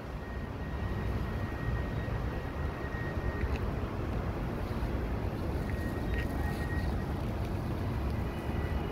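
Wind rumbling steadily on a phone's microphone, with a faint thin high tone in the background for a few seconds, twice.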